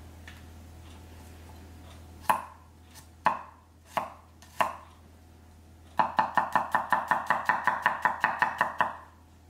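Santoku knife mincing garlic cloves on a wooden cutting board. First a few single chops about a second apart, then about three seconds of rapid chopping at around seven strokes a second, each stroke a sharp knock of blade on board.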